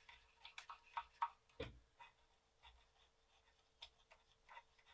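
Faint scattered clicks and light scrapes of hands cleaning a floppy drive's mechanism with an IPA-moistened swab or cloth, one knock a little louder about a second and a half in, over a faint steady hum.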